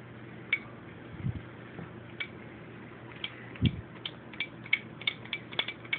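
Light plastic clicks of an Xbox controller's buttons and sticks being worked after a flush with brake parts cleaner, its mechanisms dried out, few at first and coming faster after about three seconds, with a couple of soft low thumps.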